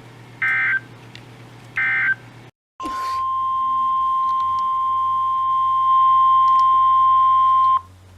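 NOAA Weather Radio EAS end-of-message code: the last two of three short screechy data bursts, about a second and a half apart. After a brief drop-out, the steady single-pitch 1050 Hz weather radio warning alarm tone sounds for about five seconds, gets louder partway through and cuts off just before the end.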